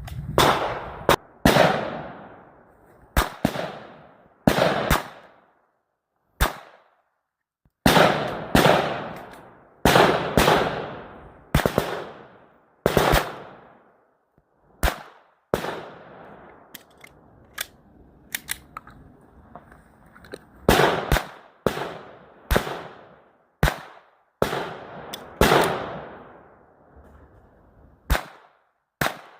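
Gunshots from a firearm, about two dozen single shots fired at an uneven pace, each loud crack followed by a fading echo, with a longer pause a little past the middle.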